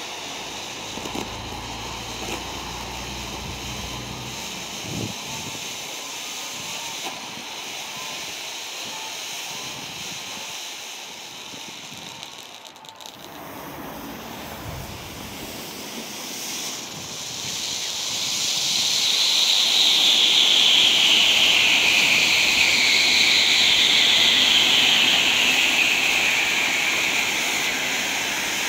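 18 mm black smoke bombs hissing steadily as they burn. The hiss sinks and breaks off around the middle, then grows louder as two burn together, with a higher tone in it that slowly falls in pitch.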